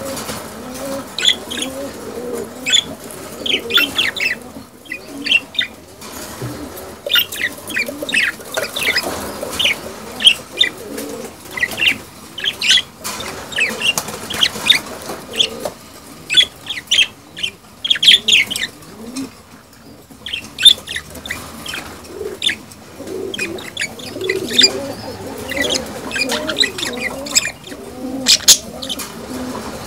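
A flock of budgerigars (budgies) chattering: a dense, irregular run of short, sharp chirps over a softer low warbling. This is the courtship chatter of breeding budgies.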